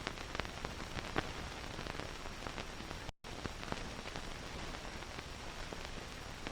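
Old film soundtrack hiss with scattered faint clicks and crackles, and a brief total dropout just after three seconds in.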